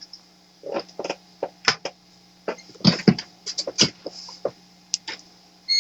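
Handheld digital multimeter being handled: a run of short, irregular plastic clicks and knocks as the meter and its test leads are moved about.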